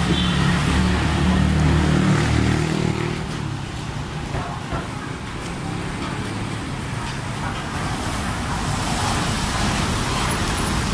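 Road traffic: a motor vehicle's engine running close by, loudest in the first three seconds and then fading into steady traffic noise.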